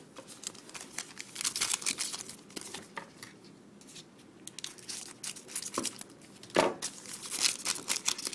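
Hockey card pack wrapper being torn open and crinkled, in two bouts of crackling with a couple of soft knocks between them.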